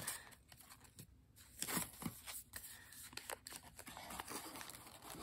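Faint paper scraping and rustling as a letter opener is worked at a tightly sealed paper envelope, heard as scattered short scratches and taps.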